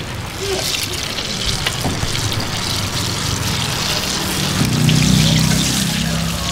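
Banana fritters sizzling as they deep-fry in hot oil, a steady hiss. Under it a low hum grows louder about two-thirds of the way through.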